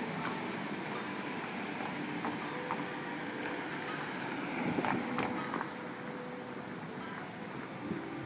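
Street traffic noise: cars idling while stopped at a red light close by, with a steady wash of street sound and a few light clicks about five seconds in.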